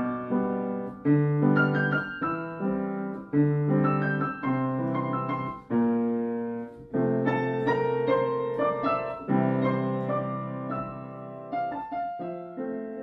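Background piano music: chords and melody notes struck one after another, each fading before the next.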